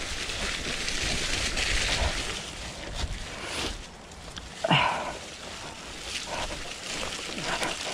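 Mountain bike descending a wet, muddy trail: a continuous rush of wind on the camera and tyres rolling and sliding through mud, with a few knocks from the bike and a short falling squeal about five seconds in.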